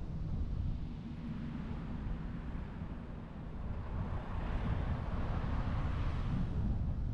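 Road and wind noise of a moving car: a steady low rumble with no engine note. A louder rush swells up and fades away about two-thirds of the way through.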